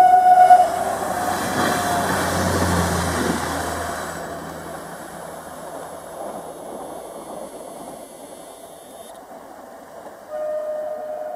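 Stadler FLIRT passenger train: its horn cuts off within the first second, then the train rushes past with a swelling noise and low rumble that slowly fades away. Near the end a horn-like tone sounds again.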